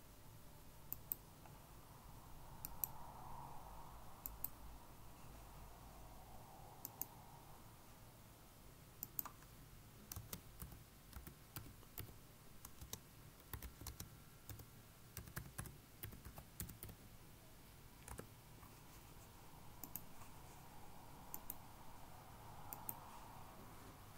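Faint computer mouse clicks and keyboard keystrokes, scattered at first, then a run of quick keystrokes in the middle.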